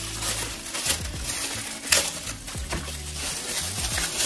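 Clear plastic bag crinkling in short sharp rustles as a plastic drink tumbler is pulled out of it, the loudest rustle about two seconds in, over background music with held bass notes.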